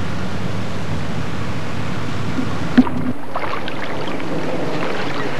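Steady rushing outdoor noise of wind on the microphone and water along the shore, broken by a sharp click about halfway through, after which the noise turns thinner and hissier.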